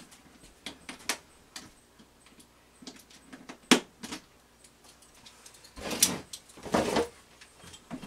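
Light knocks, clicks and scrapes of hands working on a wooden wall frame, with one sharp knock a little under four seconds in and two short scraping sounds around six and seven seconds in.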